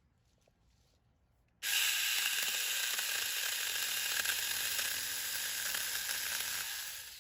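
Saker mini cordless chainsaw switching on about a second and a half in and running steadily for about five seconds as a loud, even, high hiss, then winding down near the end.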